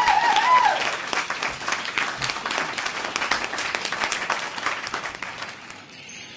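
Applause, with a short children's cheer dying away in the first second; the clapping then fades out gradually over about five seconds.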